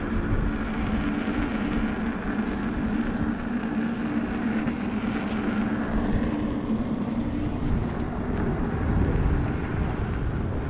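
Wind rushing over the microphone of a moving rider, with a steady low hum running under it.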